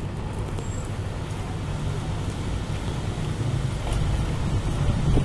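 Low, steady rumble of road traffic, growing louder near the end.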